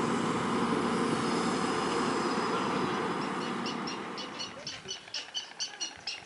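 A steady outdoor hum of traffic and voices fades out. From about three seconds in, white storks clatter their bills in an even, rapid run of dry clacks.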